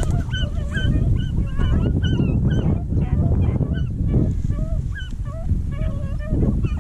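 A pack of beagles baying as they run a rabbit: many short, overlapping yelping calls at several pitches, over a steady low rumble.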